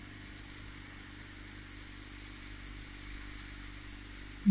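Motorcycle engine idling steadily, with low traffic noise around it.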